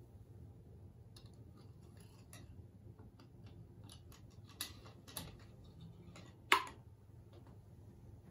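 Small clicks and taps of brass fittings and a wooden panel being handled in the lid of a wooden and brass box, with a few sharper clicks and one loud click about two-thirds of the way through.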